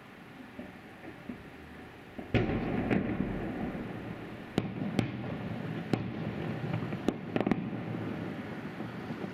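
Aerial fireworks salute bursting: a few faint pops, then a heavy boom about two seconds in, followed by a string of sharp bangs with a rolling rumble between them.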